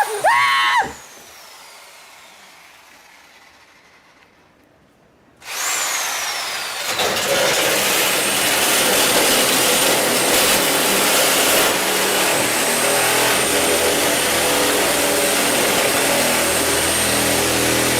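A short shout, then after a few quiet seconds a loud electric motor starts suddenly and runs steadily with a low hum.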